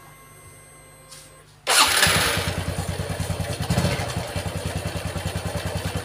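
Honda Revo FI's single-cylinder four-stroke engine starting about two seconds in, then idling with an even, rapid beat and a rough crackling rattle, 'kemrecek, krecek krecek'. The mechanic puts the rattle down to a worn starter one-way clutch (sentrik) or its rollers on the engine's left side.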